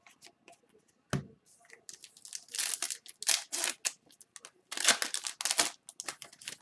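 Crinkling and tearing of trading-card packaging as it is handled, coming in two main bouts of rustling with scattered small clicks between them.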